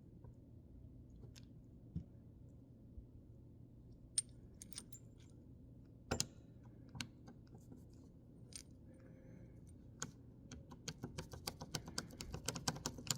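Light sharp clicks and taps, scattered at first, then coming in a quick run of several a second near the end, over a faint steady hum.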